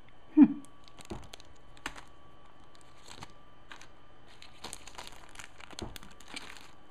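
Small clear plastic bead bags crinkling and rustling as they are handled and sorted in a cardboard box, with scattered light ticks. A brief louder knock comes about half a second in.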